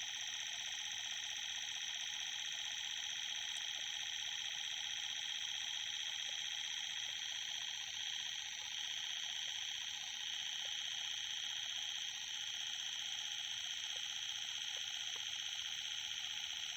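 Steady high-pitched electronic whine with a fine, fast pulsing, as from an electronic device.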